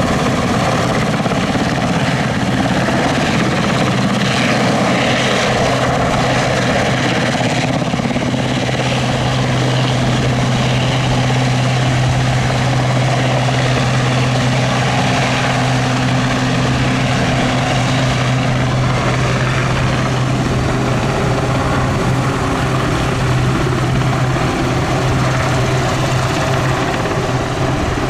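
Westland Sea King HAS.5 helicopter hovering low and close, its main rotor and twin Gnome turboshaft engines running loud and steady. A strong low hum comes in about eight seconds in and dies away near the end as the helicopter turns side-on.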